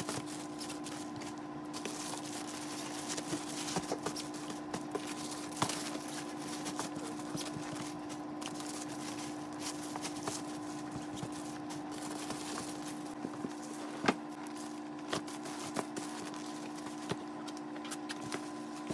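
Plastic-wrapped items and fabric drawstring bags rustling and crinkling as they are handled and packed into a plastic storage tote, with scattered small knocks and clicks, the sharpest about 14 seconds in. A steady hum runs underneath.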